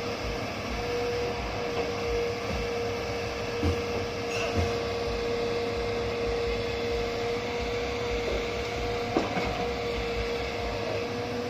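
Hitachi hydraulic excavator running steadily with a constant whine as it swings and dumps soil into a dump truck, with a few brief knocks.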